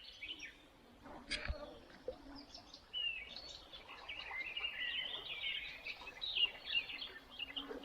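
Faint birdsong: several small birds chirping and warbling in a continuous, overlapping chorus that grows busier after about three seconds, with a soft knock about a second and a half in.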